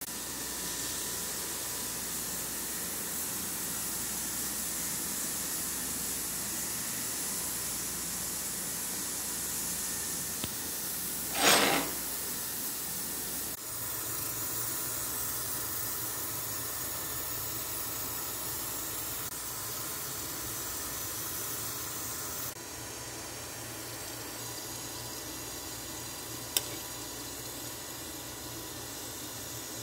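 Steady hiss of a pot of tulingan fish soup simmering on the stove. A brief louder rush of noise comes about a third of the way in, and a sharp click comes near the end.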